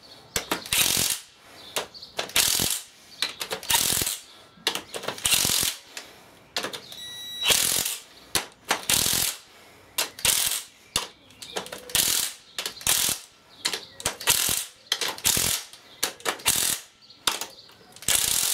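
Cordless drill-driver with a 13 mm socket tightening the nuts on a gearbox side cover. It runs in many short bursts, its torque clutch slipping with a ratcheting clicking as each nut comes tight on the low clutch setting.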